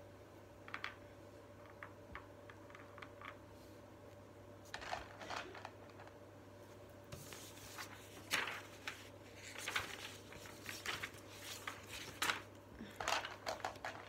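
Chunky plastic beads clicking and rattling against each other and the table as they are handled and threaded onto a cord. The sounds come in irregular short clusters, a few light clicks at first and busier from about five seconds in.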